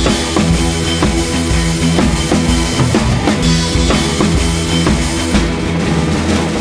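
Background music with a steady drum-kit beat, about two hits a second.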